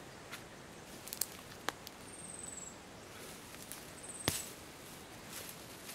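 Footsteps over dry bush litter with a few sharp cracks of twigs and sticks; the loudest crack comes about four seconds in. A short, thin, high whistle that falls in pitch sounds twice.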